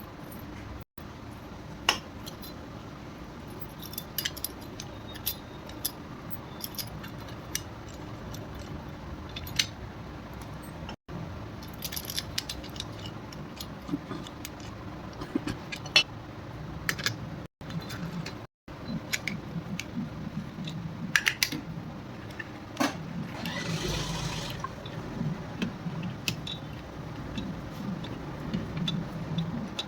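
Metal tools and motorcycle engine parts clinking and tapping as they are handled, in scattered short clicks, with a brief hissing rush about three-quarters of the way through.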